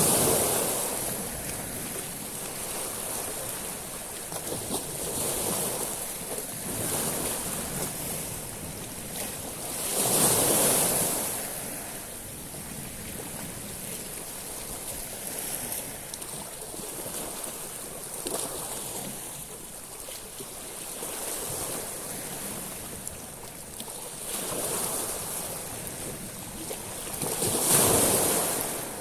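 Sea waves washing onto a beach of small stones, the water surging up and drawing back over the pebbles with a steady hiss. Three larger waves swell in, at the start, about ten seconds in, and near the end (the loudest), with smaller washes between.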